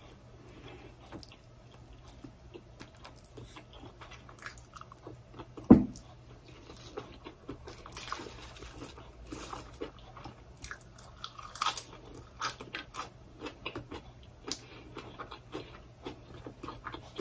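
Close-miked chewing and crunching of food with wet mouth clicks: mouthfuls of sticky rice, spicy eggplant dip and raw leafy greens. A single dull thump about six seconds in is the loudest sound.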